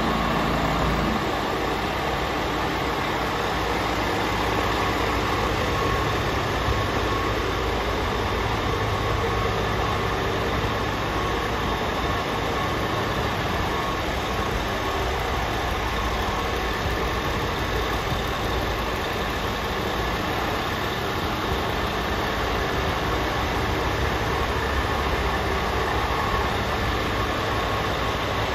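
Scania R440 tractor unit's 440 hp turbocharged diesel engine idling steadily, with a thin steady whine above the rumble.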